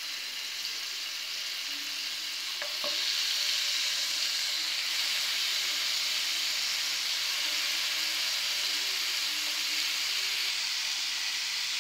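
Yogurt-marinated chicken tikka pieces sizzling on a hot nonstick tawa as they are laid on one by one; the sizzle grows louder about three seconds in as more pieces go down, then holds steady.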